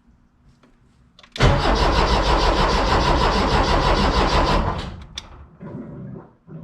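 Porsche 914 engine being cranked by its starter for about three and a half seconds, beginning over a second in, with an even rapid pulse, then stopping. It cranks but does not start despite a new fuel pump.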